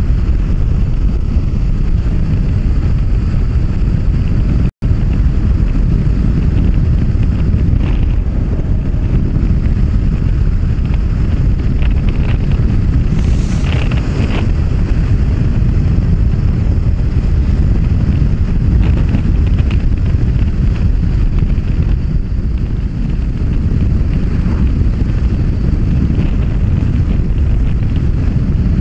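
Steady wind roar buffeting the microphone of a camera on a Honda CB500X motorcycle being ridden at road speed, with the bike's running noise underneath. The sound cuts out for an instant about five seconds in.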